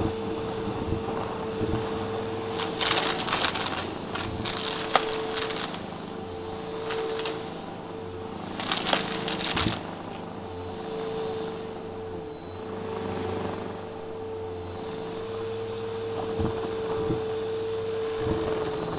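Bissell upright vacuum cleaner running with a steady hum as its nozzle sucks up crunchy debris and fluffy stuffing from carpet. There are two loud spells of crackling and rattling, about three seconds in and again about nine seconds in, with scattered clicks between.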